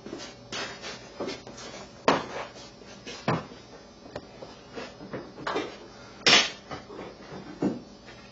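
A string of irregular knocks and clinks from hard objects being handled, the loudest just past six seconds in.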